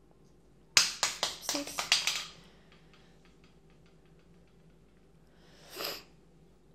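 A small plastic toy dropped onto a ceramic tile floor: a sharp clack about a second in, then a quick run of smaller clatters as it bounces, dying away within about a second and a half. A short soft swish near the end.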